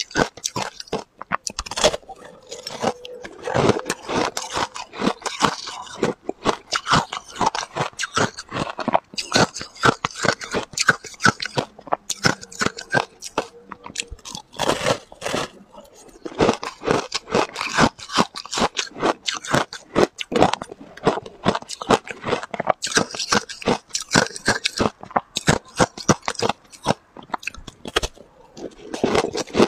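A person biting and chewing a block of crunchy ice close to a clip-on microphone: a dense, continuous run of sharp crunches and crackles as the ice breaks between the teeth.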